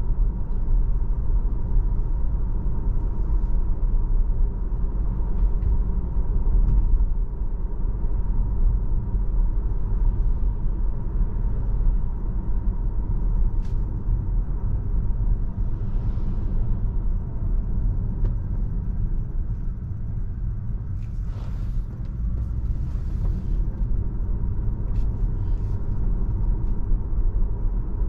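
Steady low road and tyre rumble of a Tesla electric car driving through city streets, with a faint steady high tone and a few light ticks over it.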